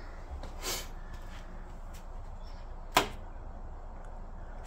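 A single sharp click at the oil boiler's control panel about three seconds in, over a steady low hum, with a brief soft rush of noise near the start.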